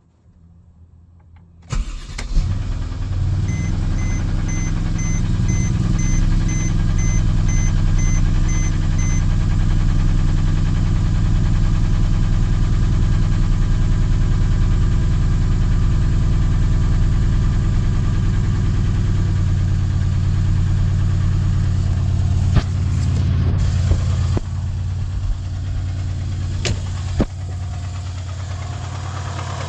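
2012 Mercedes-Benz CLS550 twin-turbo V8 starting up about two seconds in and then idling steadily, with a knock that the owner places on the passenger side of the engine and that has not set a check-engine light. A row of short beeps sounds for several seconds after the start, and a few sharp clicks come near the end.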